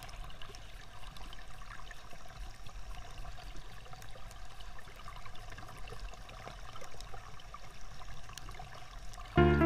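River water rushing and burbling over shallow rapids, a steady noisy flow. Loud background music cuts in just before the end.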